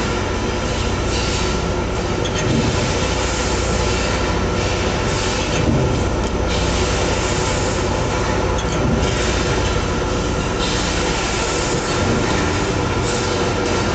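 Pet-treat extruder production line machinery running: a loud, steady mechanical din with a constant low hum and several steady tones over it.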